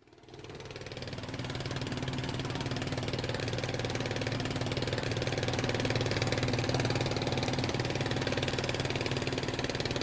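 Boat engine running steadily with a fast, even chugging pulse, fading in over the first second or so.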